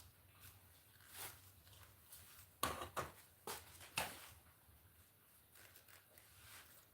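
A few short rustles and knocks, the loudest a cluster of four sharp ones about two and a half to four seconds in.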